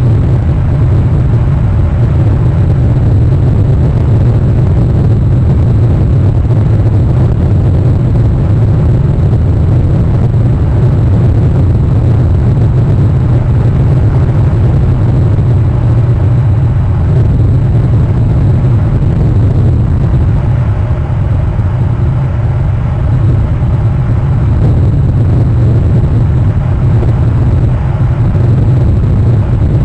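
A loud, steady low rumble with no distinct events.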